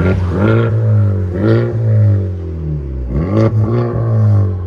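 Honda Civic Type R's turbocharged 2.0-litre four-cylinder revved through its aftermarket exhaust, the pitch jumping up and falling back about four times as the throttle is blipped.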